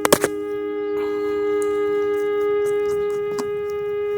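A single steady pitched tone with even overtones, held without change, like a sustained wind-instrument note. A few sharp clicks sound just after the start, and one more late on.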